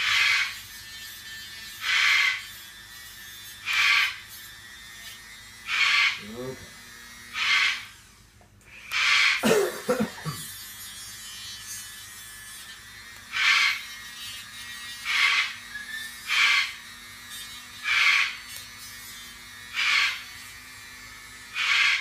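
A Dremel rotary tool runs with a faint steady hum while its grinding bit is pressed to a cockatoo's toenail in short touches, one every one and a half to two seconds, each touch a brief loud grinding rasp as the overlong nail is filed down. There is a louder, lower noise about ten seconds in.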